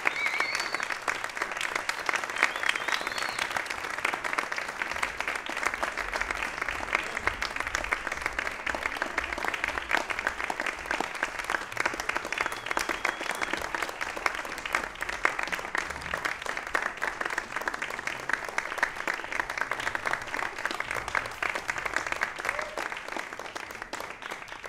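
Concert audience applauding steadily, fading out at the very end.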